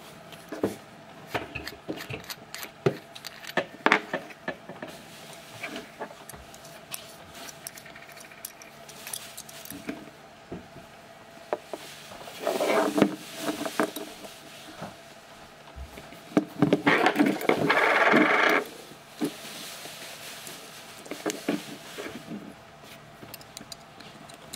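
A handmade brass petrol lighter being taken apart by hand: scattered clicks and taps of small metal parts, with two longer, louder stretches of scraping about twelve and seventeen seconds in.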